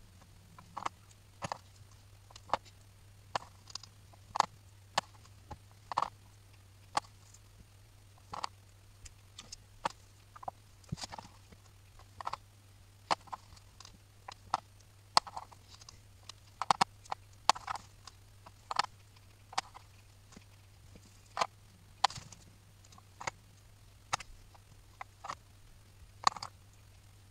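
Light, irregular clicks and taps of small metal accordion reed plates being handled and set down on a cutting mat while new valves are glued on, about one or two a second, over a faint low steady hum.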